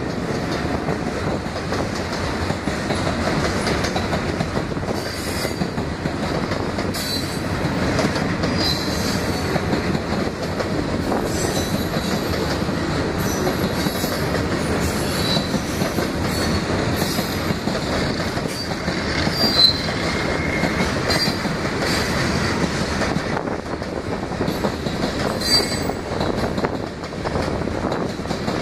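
Freight train of boxcars and covered hoppers rolling past: a steady rumble of steel wheels on the rails, with short high-pitched wheel squeals now and then.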